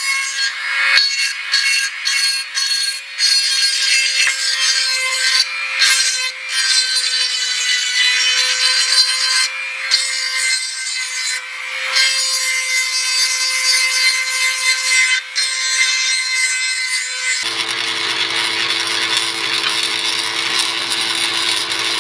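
Hand-held rotary tool running at a steady high whine while its cutting bit grinds into a brass key, with a few short dips as the bit eases off the metal. About 17 seconds in it gives way to a drill press's lower steady hum as it drills into a metal blade.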